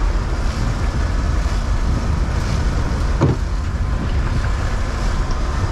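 Steady rumble of a sportfishing boat under way, its engine and rushing water mixed with wind on the microphone. A short knock about three seconds in.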